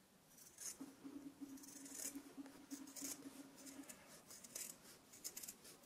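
Scissors snipping through two layers of padded fabric together, a series of short, faint cuts while trimming a rounded corner. A faint low hum sits under the first few seconds.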